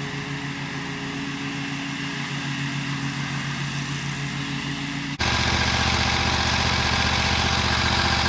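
Bad Boy Rambler 42-inch zero-turn mower engine running steadily. About five seconds in the sound changes abruptly to a louder, deeper engine sound.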